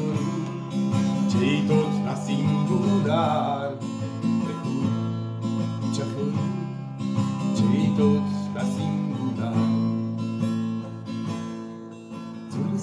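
Steel-string acoustic guitar strummed and picked, an instrumental passage of a song with no voice, getting softer near the end.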